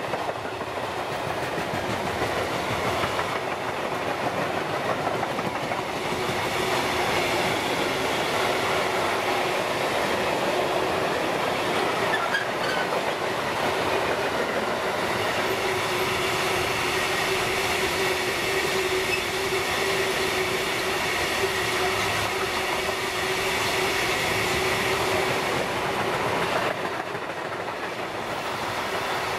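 Container flat wagons of a long freight train rolling past at close range, with steady wheel-on-rail noise and clickety-clack over the rail joints. A steady tone runs under it, strongest midway. The noise eases a little near the end as the last wagon passes.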